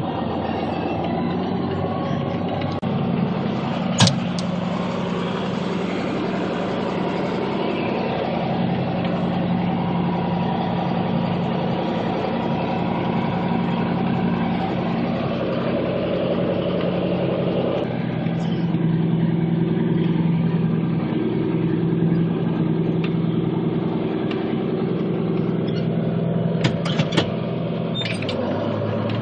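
John Deere 4440 tractor's six-cylinder diesel engine running steadily, its note shifting a few times as it works round bales. A sharp click about four seconds in.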